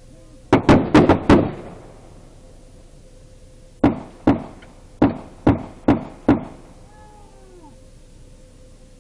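Gunshots in an exchange of fire: a rapid burst of about five shots, then after a two-second gap six more shots at a steadier pace, each a sharp crack with a short echo.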